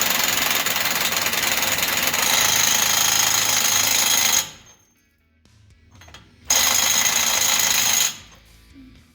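Cordless impact wrench hammering to tighten a front axle nut on its number 2 power setting: one long run of about four seconds, a pause, then a shorter burst of about a second and a half.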